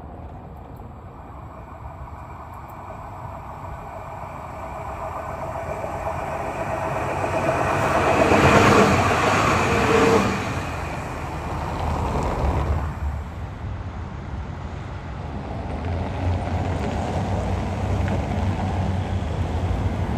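A tram passing by: the rumble of wheels on rails builds over several seconds, is loudest about nine seconds in, and then fades. A smaller swell follows a few seconds later, and a steady low rumble near the end.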